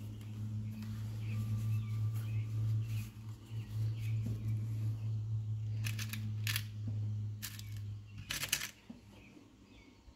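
A steady low hum, then four sharp clicks over about two and a half seconds, the last one longer. The clicks are a Nikon Z9 camera body knocking on a nail held in a bench vise.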